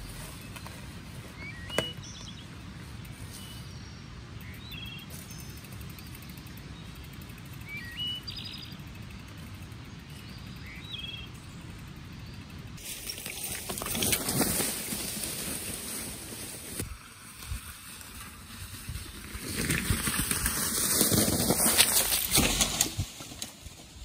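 Small birds chirping in short, repeated calls over a quiet forest background. From about halfway, a louder rustling crunch of a mountain bike's tyres rolling over dry leaf litter rises and falls, loudest a few seconds before the end.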